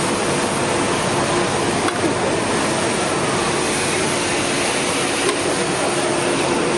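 Steady, even din of a busy city street.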